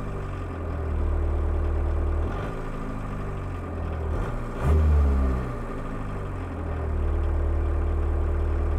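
Volkswagen Mk1 Rabbit's 1.6-litre turbodiesel idling, heard from inside the cabin, at an idle speed just raised on the injection pump's idle screw to stop the dashboard rattling at low idle. A deep drone swells and eases, with a brief louder rise in engine sound about halfway through.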